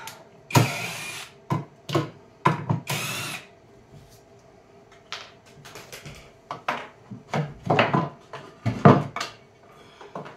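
Cordless drill-driver running in two short bursts, backing screws out of a small wooden jig, followed by scattered knocks and clunks of wood as the jig is worked loose.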